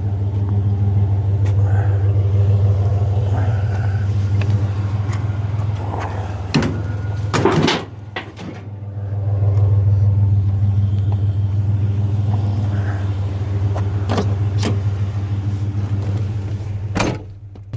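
Truck engine idling steadily, with several sharp knocks and clanks over it, the loudest about seven and a half seconds in. The engine sound drops away briefly about eight seconds in and again near the end.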